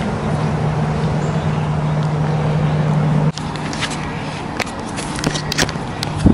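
A motor running steadily, a low hum under a wash of rushing noise; it dips sharply for an instant about three seconds in, then carries on more softly while a scatter of sharp clicks and taps follows.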